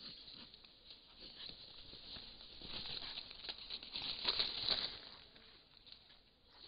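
Vultures shuffling and pecking in dry leaf litter at a carcass, a dense crackle of rustles. The flapping of wings is loudest about four to five seconds in, as one vulture spreads its wings and flaps away from the spot.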